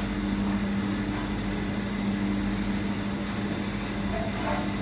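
Steady low mechanical hum of running kitchen machinery, with a couple of faint light handling sounds near the end.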